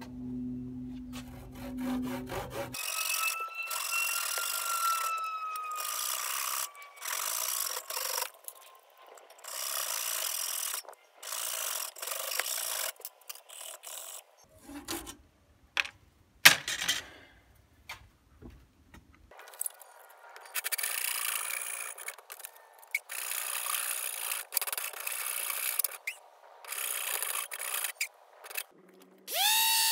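Hacksaw cutting back and forth through a stack of leather washers, in runs of rasping strokes with a pause of several seconds in the middle, broken by one sharp knock.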